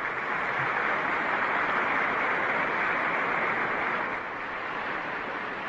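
Large audience applauding steadily, with a muffled sound and little above the mid range, then easing off a little near the end.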